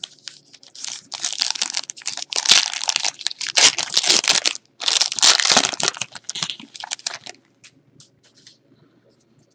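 Trading card pack wrapper being torn open and crinkled in the hands, a dense run of crackling and tearing for several seconds, then a few small rustles as the cards come out.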